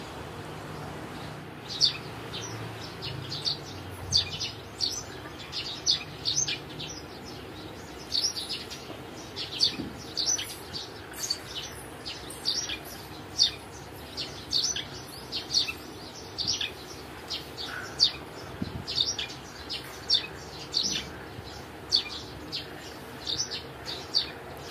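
A small bird chirping over and over: short, high, falling chirps, about one or two a second, over a steady hiss.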